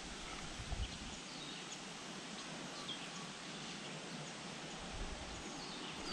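Quiet outdoor ambience: a steady faint hiss with scattered short, faint bird chirps, and a couple of soft low bumps.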